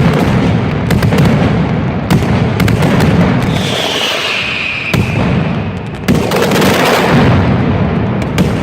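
Aerial fireworks going off in rapid succession: a continuous deep rumble of booms packed with sharp crackling reports, with a descending whistle about halfway through.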